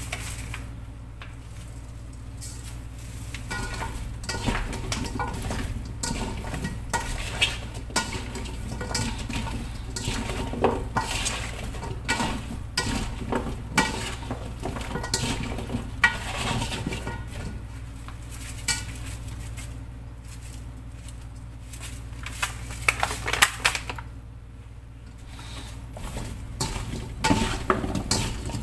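Salted chayote slices being tossed by hand in a stainless steel bowl: wet pieces rustling and sliding against the metal, with frequent irregular knocks and clinks.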